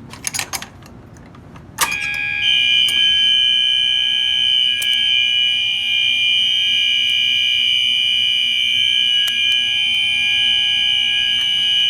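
An FCI MS2 pull station is pulled with a few sharp clicks. About two seconds in, several fire alarm horns start sounding together as one steady, continuous, high-pitched tone, with a lower tone at about 800 Hz from a horn set to that frequency. Scattered faint clicks run under the horns.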